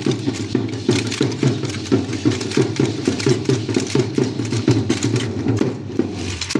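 Fast, steady dance percussion: drum beats at about four a second over a dense layer of sharp rattling clicks.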